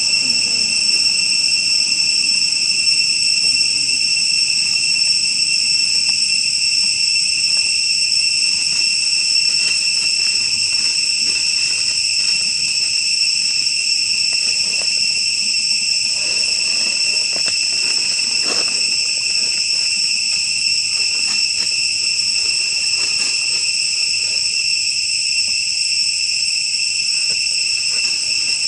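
Insects droning: one steady, unbroken high-pitched tone with a few faint ticks and rustles beneath it.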